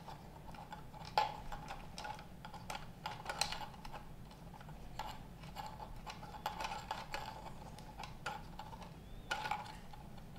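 Small irregular clicks and light scraping of hands screwing antennas onto the threaded connectors of a metal-cased Teltonika RUTX50 5G router and handling its cables, the sharpest click about a second in.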